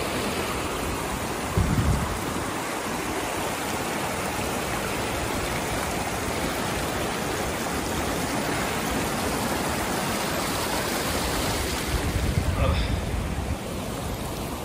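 Small glacial meltwater stream rushing steadily, with a low thump about two seconds in and a short run of low rumbles near the end.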